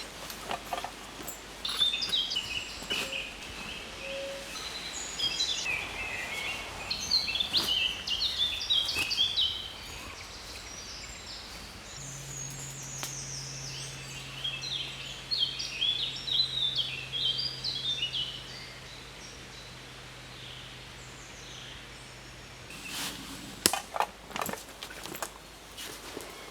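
A songbird singing in two long runs of quick, stepped chirps. A low steady hum sets in partway through and stops suddenly near the end, followed by a few sharp clicks.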